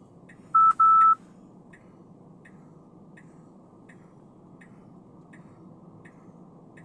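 A car's turn-signal indicator clicking steadily, about three clicks every two seconds, over faint road noise inside the cabin. Near the start there are two loud electronic beeps at one pitch, a short one and then a longer one.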